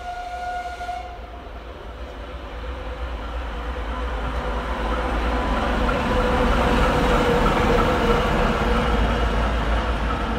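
ChME3 shunting diesel locomotive gives a short horn blast of about a second, then its six-cylinder diesel engine grows louder as the locomotive runs light past close by.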